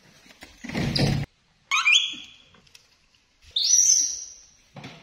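Baby macaque giving two short, high-pitched squeaking calls, about two and about four seconds in, the second higher than the first. Shortly before them, about a second in, a loud brief burst of noise.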